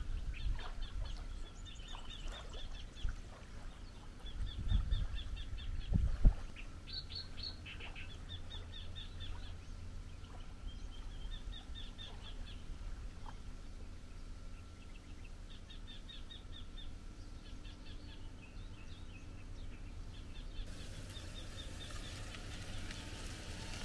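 Small birds singing short, rapid trills, repeated every second or two, over a low rumble of wind on the microphone. A dull bump about six seconds in is the loudest moment.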